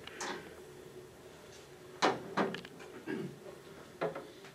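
A few knocks and clunks of handling as a heavy early stainless-steel saltwater fly reel is set down on a table, the sharpest about two seconds in.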